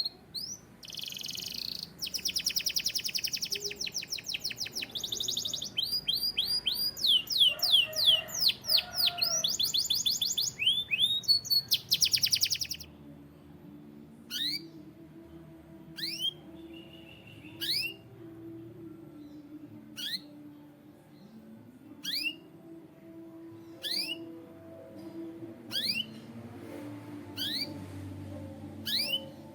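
Domestic canary singing a loud, fast song of rapid trills and repeated down-sweeping notes. About halfway through the song stops, and the bird gives single down-sweeping call notes about every two seconds.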